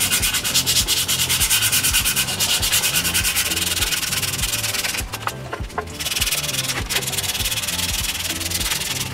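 Hand sanding a small wooden block with sandpaper on a hand pad: quick back-and-forth scratching strokes, with a brief pause about five seconds in.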